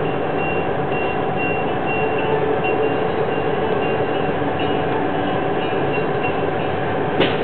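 Slow freight train of autorack cars rolling past a railroad crossing: a steady rumble and clatter of the cars, with a faint, repeated high tone. A single sharp knock comes near the end.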